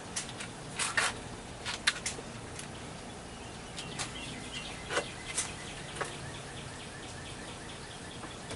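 Scattered light clicks and knocks of hand work on wood and pipe, loudest in the first few seconds. Behind them, a faint, rapid run of high chirps starts about four seconds in and carries on evenly.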